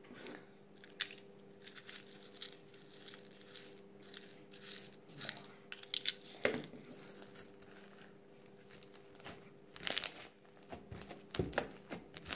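Slime being worked by hand, squished and stretched, giving irregular soft crackles and pops, a few louder near the middle and end, over a faint steady hum.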